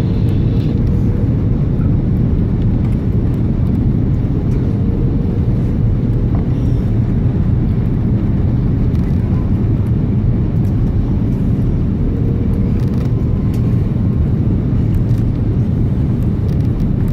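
Airbus A330-300 jet airliner noise: a steady low rumble of engines and airflow, with a faint steady hum above it.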